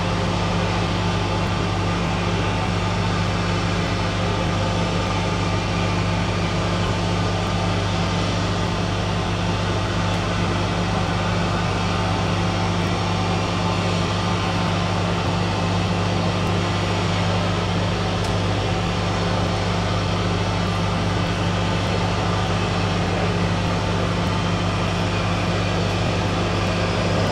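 Steady low mechanical hum with a faint hiss above it, holding the same level and pitch throughout without rising or fading.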